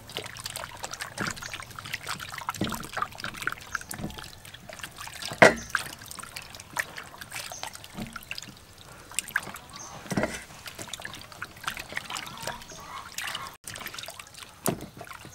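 Raw chicken drumsticks being washed by hand in a stainless steel bowl of water: wet sloshing and squelching as they are rubbed, with frequent small knocks and clicks of meat and hands against the bowl. A sharp knock about five seconds in is the loudest sound.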